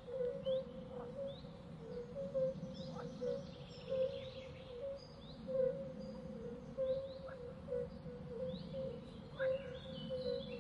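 Birds calling: many short, high chirps repeated every half second or so, over a steady low hum.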